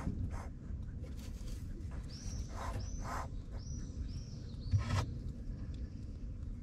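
Small kittens hissing in short breathy bursts. Around the middle comes a quick run of about five high, short chirps, and about five seconds in there is one sharper, louder burst.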